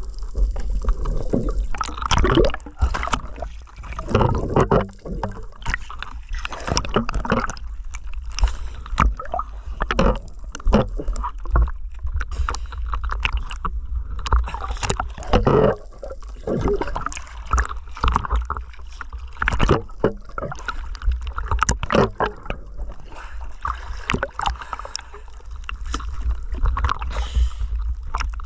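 Water moving around an underwater camera: gurgling and sloshing over a steady low rumble, broken by many irregular clicks and knocks.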